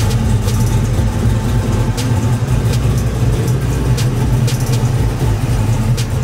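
540-cubic-inch big-block V8 of a 1970 Jaguar XJ6 running at idle as the car rolls slowly by, a steady, choppy rumble.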